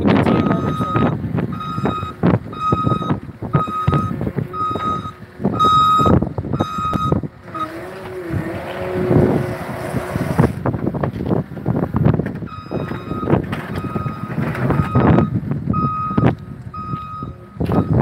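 Backup alarm of a John Deere 330G skid steer loader beeping at an even pace while it reverses, stopping for a few seconds midway and then starting again. Wind buffets the microphone throughout.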